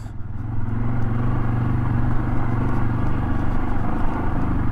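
Yamaha XT 600 E's air-cooled single-cylinder four-stroke engine running under throttle off-road. It picks up over the first second, then pulls at a steady pitch.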